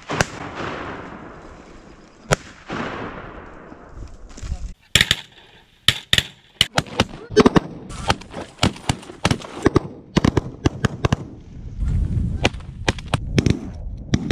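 Shotgun blasts rolling away in long echoes, two about two seconds apart near the start. They are followed by a rapid clatter of short sharp cracks and pops in the middle of the stretch.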